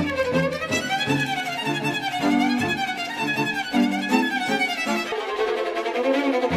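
Background music: a melody that slides up and down in pitch over changing lower notes, the low notes dropping out for about the last second and a half.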